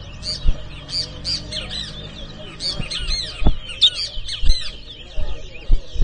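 Towa towa (large-billed seed finch) singing a fast run of bright chirping whistled notes, with several dull thumps.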